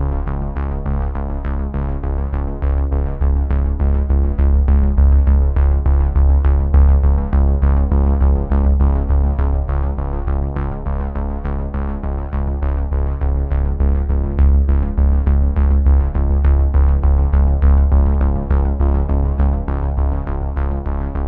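Background music: a synthesizer piece with a steady beat and a heavy bass line.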